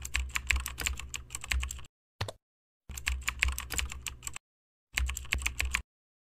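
Computer keyboard typing: three quick runs of keystrokes, each under two seconds, with a lone key click between the first two runs and another at the end. The gaps between runs are dead silent.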